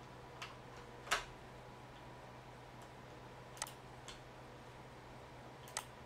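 About five scattered computer mouse clicks over a faint steady low hum. The loudest comes about a second in, and a quick double click falls near the end.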